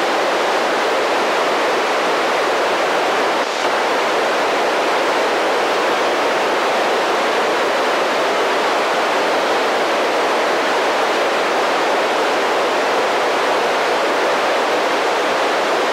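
Steady static hiss from a handheld FM ham radio receiver with its squelch open, tuned to the SO-50 satellite downlink while no voice is coming through.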